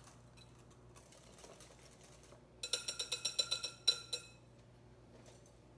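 Wire whisk beating pudding in a glass mixing bowl: a quick run of clinks, about seven a second for a second and a half, as the wires strike the glass and the bowl rings.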